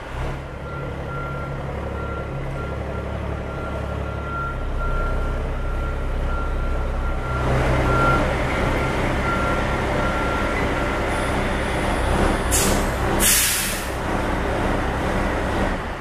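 Rollback truck's Cummins L10 diesel engine running as the truck backs up, with a backup alarm beeping repeatedly through most of it. Near the end come two short bursts of air hiss from the air brakes.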